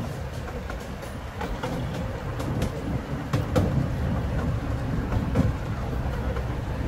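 Miniature ride-on train rolling along its track: a steady low rumble with irregular clicks as the wheels run over the rail joints.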